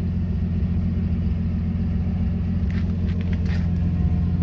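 The exhaust of a 1967 Ford F250's inline-six, idling steadily at the tailpipe end, with an idle the owner hears as having a slight miss. A few light clicks come about three seconds in.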